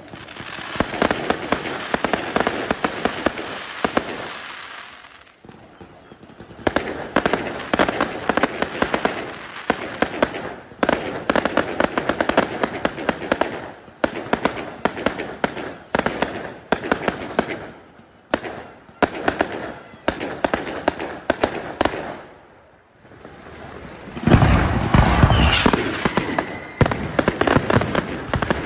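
Aerial fireworks going off in volleys of rapid crackling and popping, with short lulls between. A high falling whistle is heard twice. A heavy deep boom about 24 seconds in is the loudest moment, followed by dense crackling.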